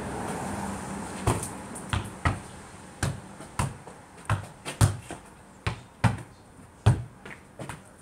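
A football being kicked and bouncing off a concrete block wall and the ground: a dozen or so sharp thuds at irregular spacing, often about half a second apart.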